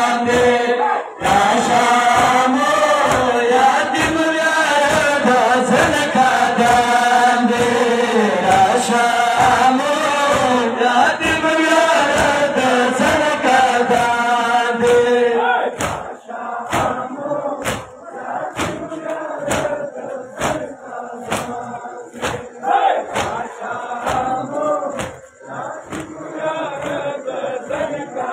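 Crowd of male mourners chanting a Pashto noha together, with rhythmic open-hand chest beating (matam) keeping time. About 16 seconds in the chanting drops away, leaving mostly the steady slaps of the chest beats with scattered voices.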